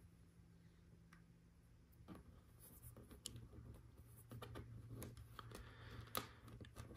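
Faint handling of small plastic LEGO Technic pieces: light rustling, with a few sharp clicks as the parts are pressed together, about two, three and six seconds in.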